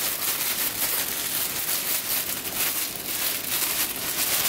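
Thin clear plastic wrapping crinkling and crackling continuously as it is handled, a dense run of small crackles.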